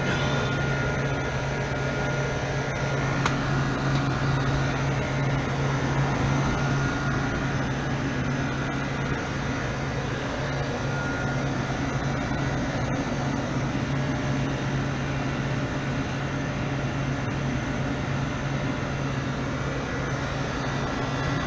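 Freezer's refrigeration condensing unit running: a steady hum with the noise of its condenser fans.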